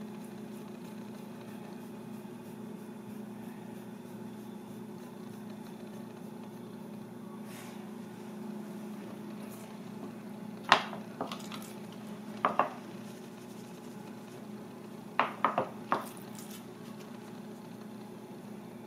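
Sharp metallic clinks and knocks of a stainless steel kitchen tray being handled on a counter, in three short groups a little over halfway through, over a steady low mechanical hum.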